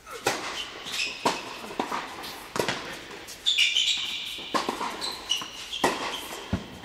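A tennis serve followed by a rally: sharp racket hits and ball bounces on an indoor hard court every second or so, echoing in a large hall. Short high squeaks, typical of tennis shoes on the court, join in from about halfway.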